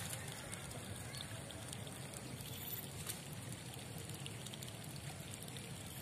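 Faint, steady trickle of water.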